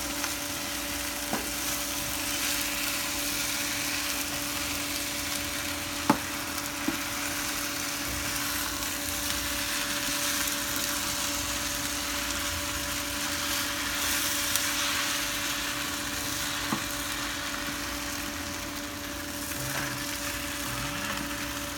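Stir-fried glass noodles with seafood sizzling in a frying pan just taken off the heat, stirred and lifted with wooden chopsticks, with a few sharp clicks of the chopsticks against the pan. A steady low hum runs underneath.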